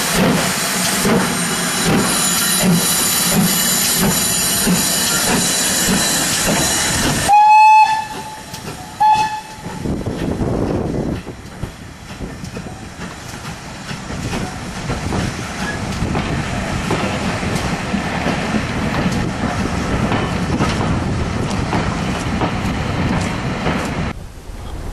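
Steam locomotive at close range, GWR Hall class 4-6-0 No.4953, with steam hissing loudly over a pulsing beat. About seven seconds in the hiss stops and the whistle gives two short blasts, the loudest sounds. Then a steady rumble as the train rolls by.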